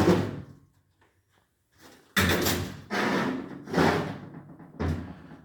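Four heavy metallic clunks about a second apart, each ringing briefly, as metal parts are handled and set down on a workbench during a cylinder-head teardown.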